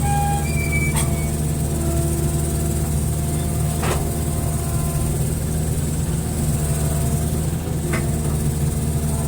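Hitachi excavator's diesel engine running steadily under a ditch-digging job, with three sharp knocks spread through it.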